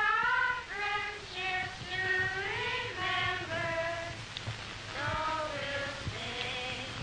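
A group of young voices singing a song together, carrying a single melody line from note to note.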